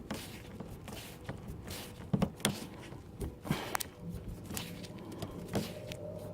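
Scattered light clicks and knocks of hands fitting a retaining clip around a car's fuel filter and rubber fuel hose. A faint steady hum comes in about four seconds in.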